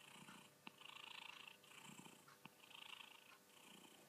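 Calico cat purring faintly, the purr swelling and easing with each breath, with a few light clicks.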